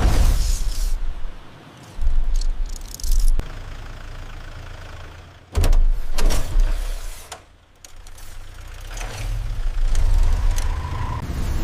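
Action-film sound effects: a deep vehicle-like rumble with sharp mechanical hits, the sound cut off and restarted abruptly several times.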